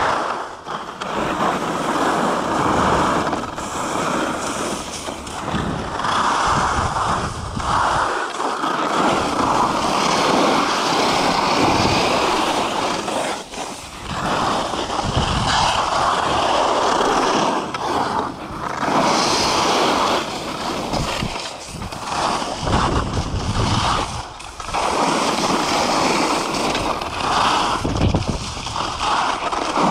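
Skis carving and scraping over packed, groomed snow on a fast downhill run, the rushing noise swelling and easing every few seconds with the turns, mixed with wind on the camera microphone.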